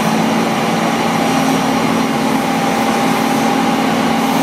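Pushback tug's engine running steadily under load while towing an airliner by a towbar on its nose gear, with a faint high whine on top.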